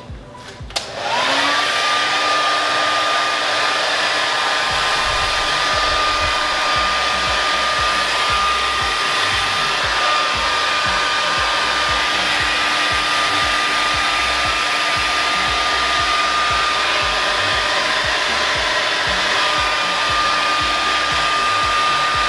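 Handheld hair dryer switched on about a second in, its pitch rising as the motor spins up, then blowing steadily with a high whine over the rush of air.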